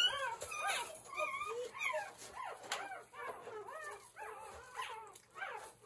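Four-day-old puppy whimpering in a steady run of short, high squeaks, two or three a second.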